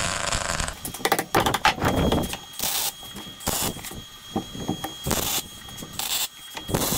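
Welder laying a string of quick tack welds: short crackling bursts, each a fraction of a second and unevenly spaced, the first a little longer, over a faint steady high whine.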